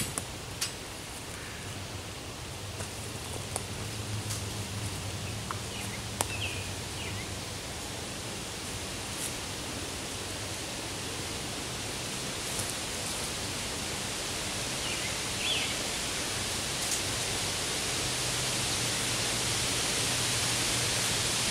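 Steady outdoor background hiss that grows slowly louder, with a few faint clicks and two brief high chirps.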